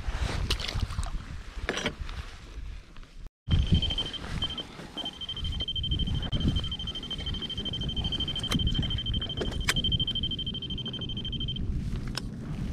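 Low rumbling wind and water noise on an inflatable paddleboard at sea, with a few short handling knocks. About three and a half seconds in, a steady high electronic beep tone starts and holds for about eight seconds, briefly broken once early on, then stops.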